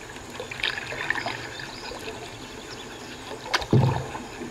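Canoe paddle strokes: water dripping and trickling off the paddle blade beside a small boat. A single louder thump about three and a half seconds in.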